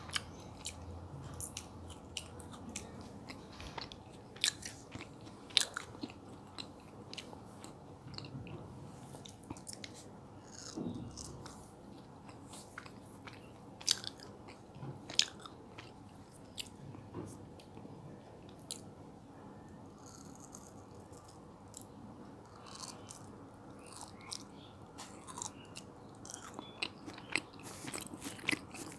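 Close-miked biting and chewing of mango jelly strips, with many short, sharp mouth clicks scattered throughout.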